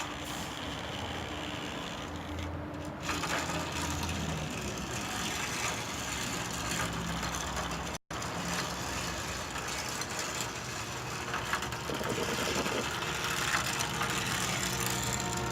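Battery-powered toy train's small electric motor and gears running steadily, cutting out for an instant about eight seconds in.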